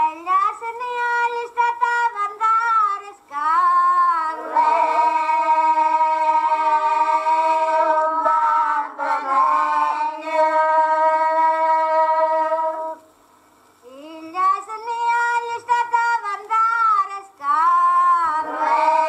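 A woman's high voice singing a traditional Abruzzese stornello on a 1964 field recording. She holds long notes, one for about eight seconds, and breaks off briefly about 13 seconds in before the next phrase.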